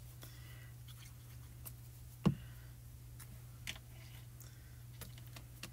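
Hands handling small paper cut-outs on a craft desk: faint light ticks and taps, with one soft thump a little over two seconds in and a smaller tap over a second later, over a steady low hum.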